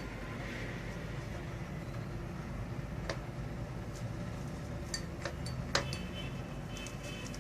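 A few light clicks and a clink of glass over a steady low hum. The loudest clink comes near the end and rings briefly.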